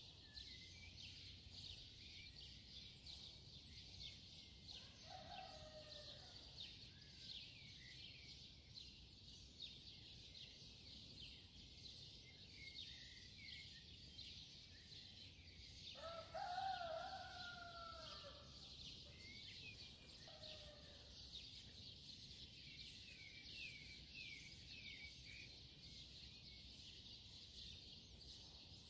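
Faint bird sounds: constant high chirping, with a longer, lower call about five seconds in, a louder one about sixteen seconds in and a fainter one near twenty seconds.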